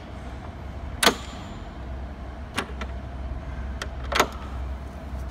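Sharp clicks and knocks of LED display cabinet locks and latches being worked by hand as the cabinets are joined, five in all. The loudest is a ringing knock about a second in, with another strong one near the end.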